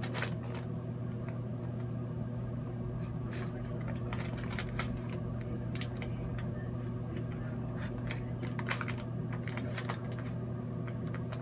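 Scattered faint clicks and crackles from a folded parchment packet of kief squeezed between the hot plates of a hair straightener, over a steady low hum.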